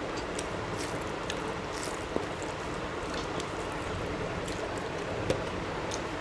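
Eating sounds up close: fingers mixing and squelching rice and fish curry, with soft chewing and lip smacks as short wet crackles over a steady background hiss. Two small sharp clicks, about two seconds in and near the end.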